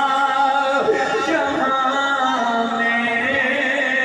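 A man's voice singing or chanting a melodic line in long held notes, gliding smoothly between pitches.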